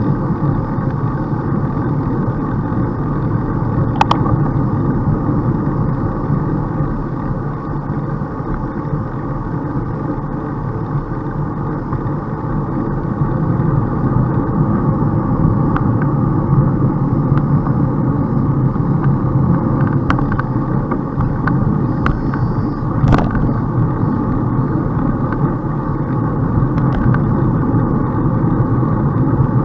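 Steady rushing wind and road noise from a bicycle ride, with a few sharp clicks scattered through; the loudest click comes about three quarters of the way in.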